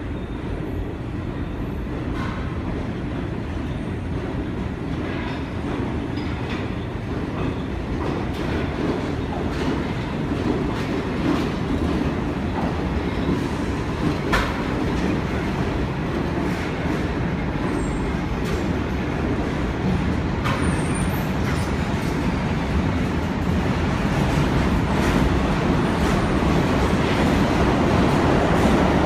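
Subway trains rumbling through an underground station: the R33 Redbird garbage work train passes with wheels clacking over rail joints and a few brief high wheel squeals, and the rumble grows louder near the end as a second train approaches.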